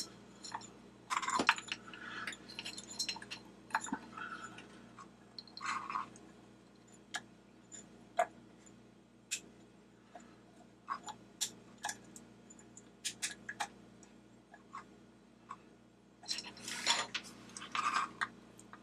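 Flashlight parts and an LED board being handled and fitted together: irregular light clicks and taps of small plastic and metal parts, busier about a second in and near the end.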